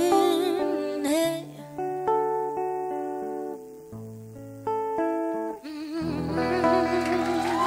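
The closing bars of a pop song: guitar chords with a held, wordless sung note wavering in vibrato. The voice drops out for a few seconds in the middle, then comes back about six seconds in.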